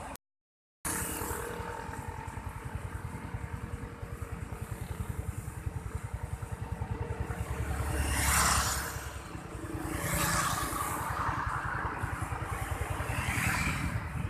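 A motor vehicle engine running with a steady, fast low pulse. A louder rushing noise swells up three times: about halfway in, a couple of seconds later, and near the end.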